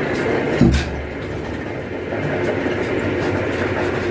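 Borewell drilling rig's drum winch machinery running with a steady mechanical clatter, and one heavy thump about half a second in.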